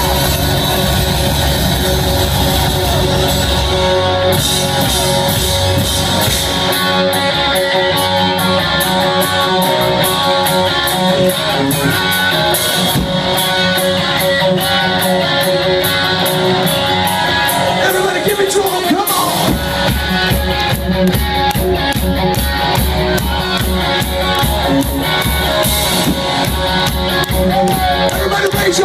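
Live rock band playing loudly: electric guitar and drum kit, heard from within the crowd. A steady kick-drum beat comes in strongly about two-thirds of the way through.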